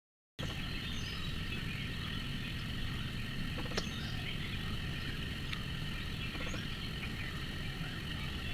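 Outdoor woodland ambience: a steady chorus of insects buzzing in several high, even tones over a low rumble, with a few faint clicks.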